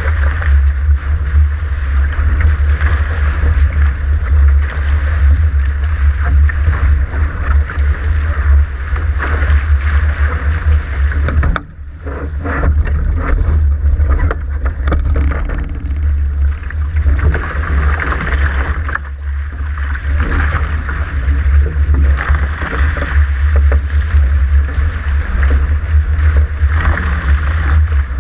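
Wind buffeting the microphone of an action camera mounted on a Dart catamaran's hull, over water rushing and hissing past the hull as the boat sails fast through spray. It drops briefly quieter about twelve seconds in.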